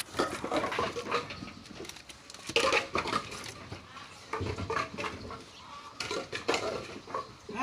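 Timber being unloaded by hand: pieces of wood knocking and clattering against each other at irregular intervals, with a few louder knocks.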